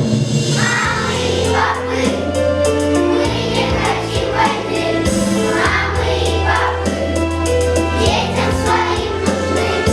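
A choir singing a song with instrumental accompaniment.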